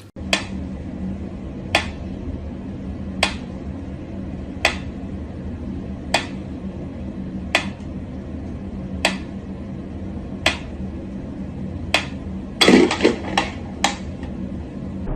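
Mechanical pendulum metronome ticking slowly and evenly, about one tick every second and a half. Near the end comes a quick burst of louder knocks and clatter as a cat lunges at it.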